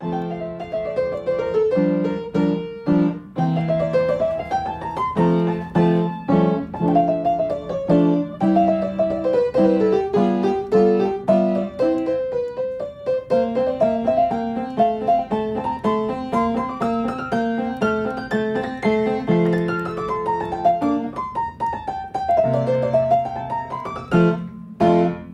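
Background music: a piano playing runs of notes that climb and fall over low repeated chords.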